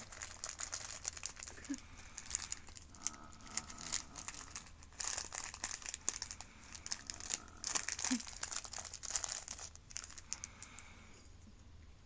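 Plastic packet of kaki no tane rice crackers crinkling and rustling in irregular bursts as it is grabbed and tugged back and forth. The loudest bursts come about five and eight seconds in, and it dies down near the end.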